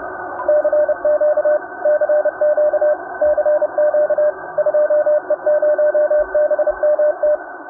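Morse code sent as a single keyed tone: an irregular run of short and long beeps over the narrow, band-limited hiss of a radio receiver. It starts about half a second in and stops shortly before the end.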